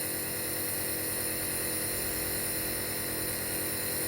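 Nebulizer running with a steady motor hum and hiss while it turns the inhalation solution into mist.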